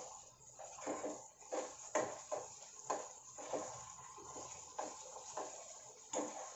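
Steel spoon stirring and scraping a thick masala paste frying in a nonstick pan: short knocks and scrapes about twice a second over a faint sizzle. The paste is being fried until its raw smell is gone.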